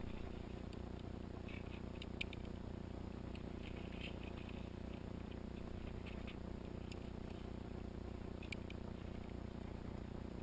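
Faint crinkling and rustling of paper targets and a plastic bag being handled and set down, in scattered bursts of small crackles, with a sharper tick about two seconds in and another near the end.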